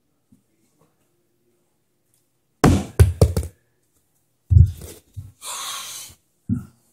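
A small plastic bottle tossed in bottle-flip attempts, knocking and thudding on wooden stairs. There is a quick run of knocks about two and a half seconds in, another cluster about a second and a half later, a short hiss, then one last knock near the end.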